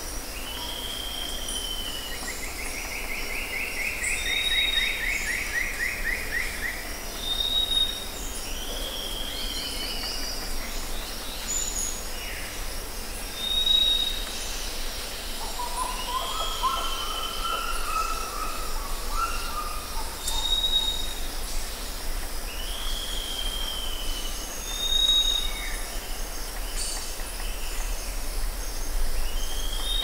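Tropical rainforest birds calling over a steady high hiss of insects. A short, high whistle repeats every three to four seconds, mixed with arching calls, a long falling trill a couple of seconds in, and lower, fuller calls about halfway through.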